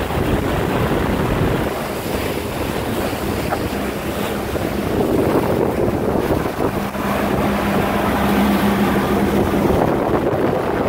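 Pontoon boat under way: wind buffeting the microphone and water rushing past the hull, over the steady hum of the boat's motor, which grows a little louder over the second half.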